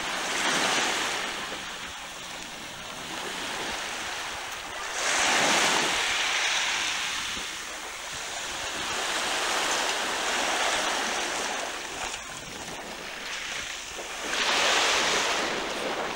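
Small waves washing onto the shore, a steady hiss that surges louder every four or five seconds as each one breaks.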